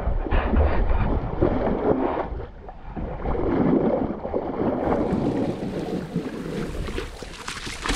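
Water rushing and splashing along a sailboat's hull as the bow cuts through ocean waves, surging and easing, with wind buffeting the microphone.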